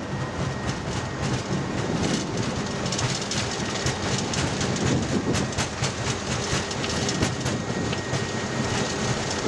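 Airbus A330 cockpit during the high-speed takeoff roll: engines at takeoff thrust under a steady rumble of the wheels on the runway, with quick irregular thumps and rattles as the gear rolls over the runway surface.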